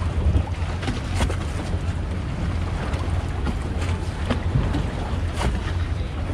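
Motorboat running on the water, a steady low engine rumble under water wash and wind buffeting the microphone, with a couple of sharp taps about a second and five seconds in.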